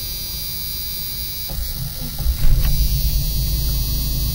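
A 1995 Jeep Cherokee XJ's 4.0-litre inline-six is cranked by the starter about a second and a half in, catches within about a second and settles into a steady idle. It starts readily, without hesitation.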